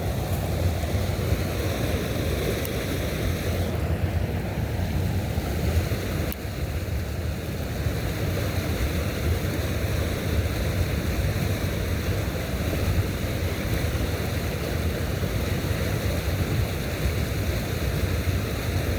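Steady rushing of wind and water, an even outdoor noise heaviest in the low end, with no clear events in it.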